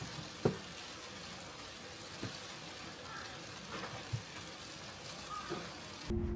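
Steady rain falling, an even hiss with a few faint drips or taps. It cuts off abruptly near the end.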